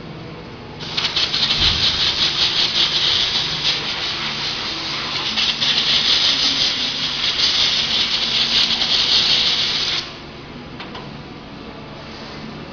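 A machine giving off a loud, rough hissing noise that starts about a second in and cuts off suddenly about ten seconds in.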